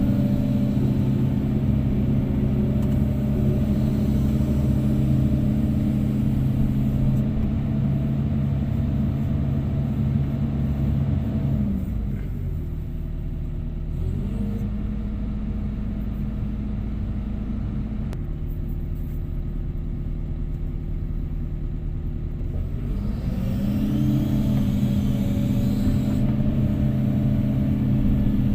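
Heavy diesel engine running steadily, then dropping to a lower speed about twelve seconds in, picking up briefly, and climbing back to its earlier speed about twenty-three seconds in.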